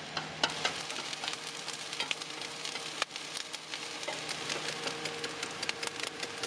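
Fried rice with egg and chicken sizzling on an electric teppanyaki griddle, with irregular quick clicks and scrapes of wooden chopsticks stirring it.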